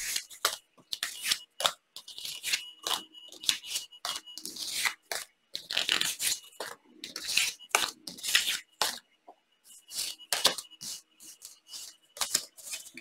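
Oracle cards being slid out of a fanned-out deck and laid down on a tabletop: an irregular run of quick card slides and taps, with a short pause about two-thirds of the way through.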